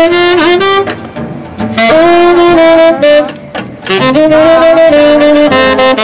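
Saxophone playing jazz in three long held notes of about a second each, separated by short breaks, then quicker notes near the end, backed by upright bass and drums.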